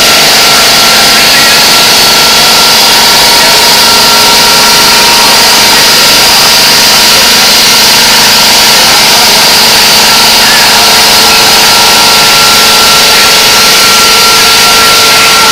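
Granite bridge saw with a 10 HP motor cutting a granite slab with its circular blade: a loud, steady high whine over continuous grinding.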